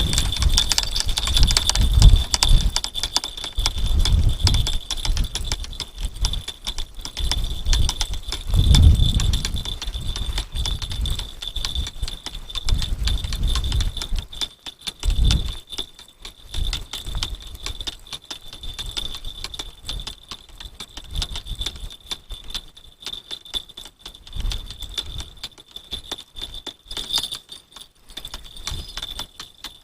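Strong wind buffeting the microphone in heavy gusts, which ease after about halfway, over a steady fine rattling or clicking and a thin high whine.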